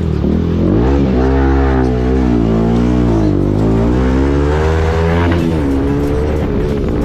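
Motorcycle engine under way, its pitch rising as it accelerates and dropping back, rising again and falling away about five seconds in, as it runs up through the gears.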